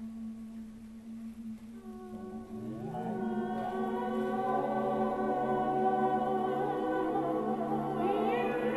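Ambient vocal music: a single held low note, joined about two seconds in by more sustained voices that slide up into a layered choir-like chord and swell in loudness. More voices slide in near the end.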